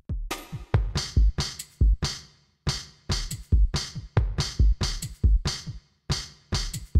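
Electronic background music with a drum-machine beat of deep kick drums and sharp, bright high hits, broken by a few short pauses.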